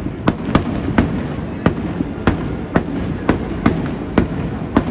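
Aerial fireworks going off in a rapid string of about ten sharp bangs, roughly two a second, over a steady low rumble.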